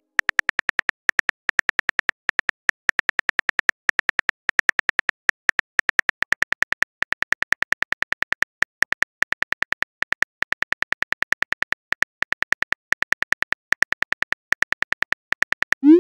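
Phone on-screen keyboard click sounds, rapid and steady, as a text message is typed. It ends with a short rising swoosh as the message is sent.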